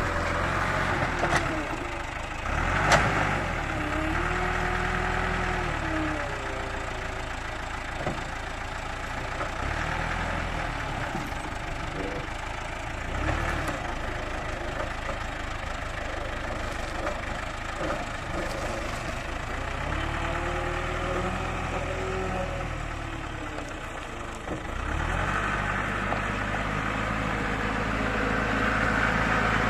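Caterpillar 428 backhoe loader's turbo diesel engine running, its revs rising and falling as the front loader bucket scoops and lifts dirt, with a sharp clank about three seconds in.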